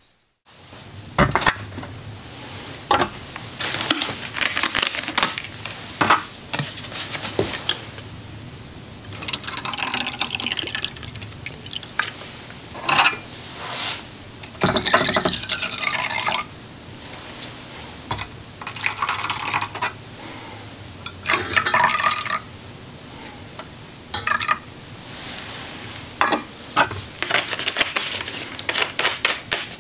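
Camp gear being set down and handled on a slatted metal camp table, with repeated clinks and knocks, and several short pours of liquid, with a measuring cup and a bottle of denatured alcohol in hand.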